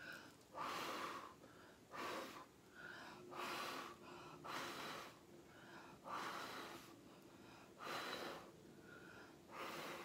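A person blowing hard, short puffs of breath onto wet acrylic paint to push it across the canvas in a Dutch pour, about seven puffs, one every second and a half.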